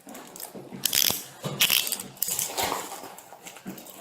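Rustling with scattered clicks and knocks from close handling, heard through a police body-worn camera, loudest about a second in and again a little later.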